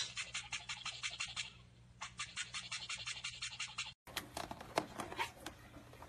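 Toothbrush bristles scrubbing against a cockatiel's beak in quick scratchy strokes, about seven or eight a second, with a short pause partway through. About four seconds in, a white-bellied caique's beak nibbling and tapping at a cord in irregular clicks.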